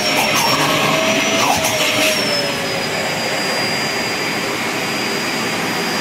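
Household vacuum cleaner running steadily with a high motor whine that drops slightly in pitch about two seconds in. A few short knocks and scuffs come in the first two seconds.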